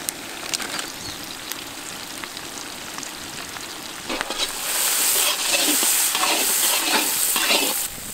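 Butter melting and sizzling in hot oil with chopped onions, garlic and green chillies. The frying gets louder about halfway through and pulses about twice a second.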